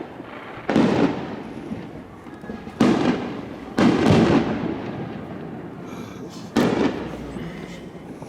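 Fireworks going off: four loud bangs, about a second in, near three and four seconds in, and again past six seconds, each fading away over a second or two.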